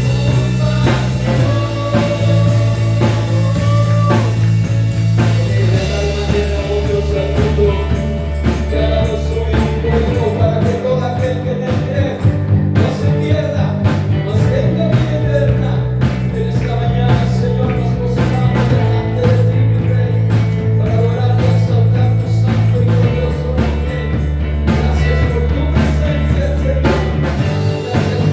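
Christian worship-band music: full, steady bass chords that change every four to five seconds, with guitar, drums and a wavering melody line above.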